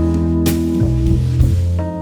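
Instrumental background music with guitar and drums, with a sharp cymbal-like hit about half a second in.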